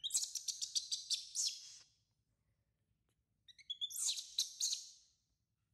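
Newborn baby monkey giving shrill, high-pitched cries in quick succession, in two bursts: one lasting about two seconds, and a second starting about three and a half seconds in.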